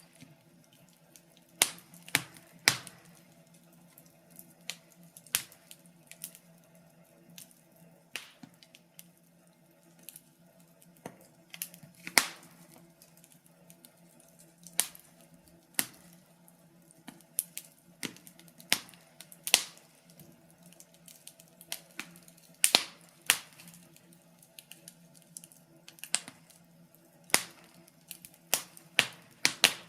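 Wood fire crackling: irregular sharp pops and snaps, sometimes in quick clusters, over a faint low steady hiss.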